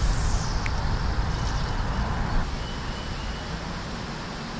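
Hiss of fishing line paying out from a spinning reel after a cast, falling in pitch and fading within about a second, over a steady low rumble of wind on the microphone.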